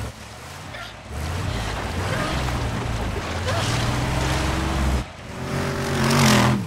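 Off-road buggy engine running steadily under load as it ploughs through shallow water, with a hiss of spray over it. About five seconds in the sound breaks off, then the engine revs up, rising in pitch to a loud rush as the buggy passes close by.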